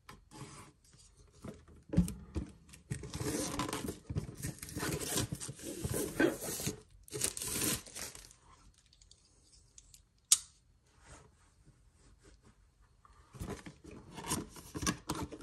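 Product packaging being cut open with a knife and torn: irregular bursts of slitting and ripping, a single sharp click about ten seconds in, then plastic wrap crinkling near the end.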